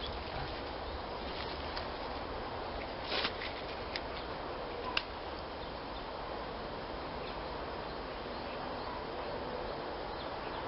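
Steady outdoor noise with a few short, sharp clicks about three, four and five seconds in.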